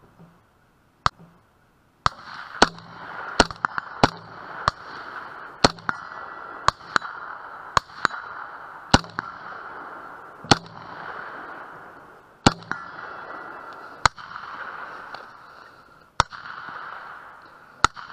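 Gunfire from a night rifle and pistol drill: some fifteen single shots at uneven intervals, mostly a second or two apart and now and then two in quick succession. There is a steady hiss underneath.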